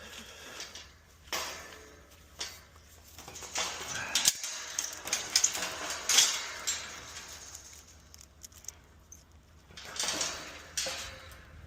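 Scattered clinks and knocks at irregular intervals, with quieter scuffing and rustling between them.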